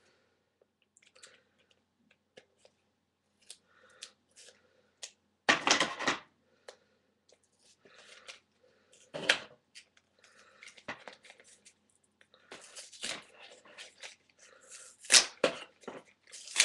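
Small retail package being opened by hand: scattered clicks, crinkles and rustles of packaging, with louder bursts of handling about six and nine seconds in and a busier stretch near the end.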